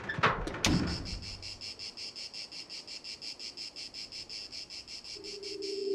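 Insect song, a high, even pulsing of about six or seven chirps a second, after two sharp swishes in the first second. A low steady tone comes in near the end.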